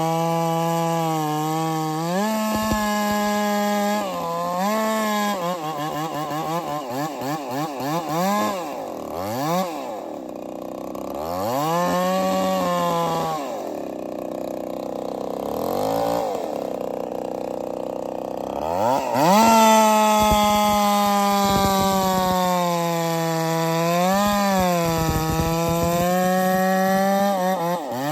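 Holtzfforma 372-clone two-stroke chainsaw running at high revs through a cut, its pitch holding high, then dipping and climbing back several times as the chain is loaded in the wood. The saw is pulled down hardest in the middle and comes back up to full speed a little after halfway.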